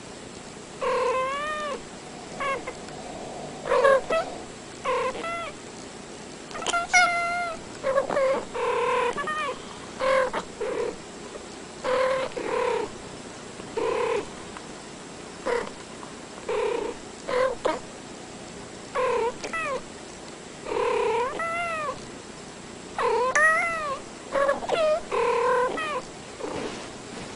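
Two domestic cats meowing back and forth in short calls whose pitch rises and falls, a call every second or so.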